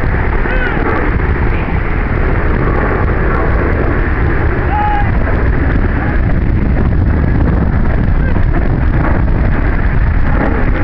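Steady wind buffeting the camera microphone, with a heavy low rumble throughout and a few short chirps above it.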